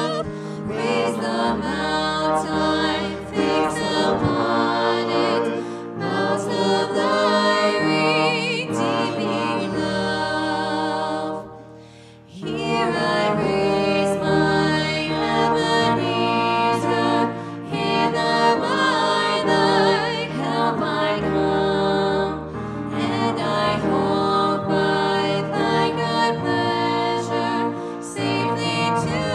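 Two women singing a worship song together to electric keyboard accompaniment, with a brief break in the music about twelve seconds in.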